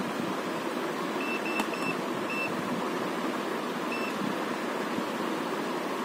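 Steady whooshing run of the air-conditioner's fan motor, driven by the repaired PCB. Five short high beeps sound in the first four seconds.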